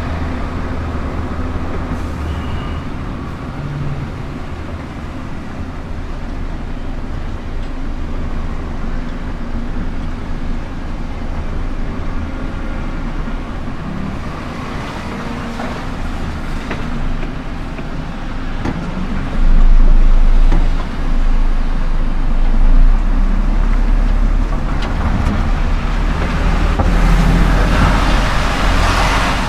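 Scania R410 concrete truck's diesel engine running with a steady low rumble, growing heavier and louder from about two-thirds of the way through.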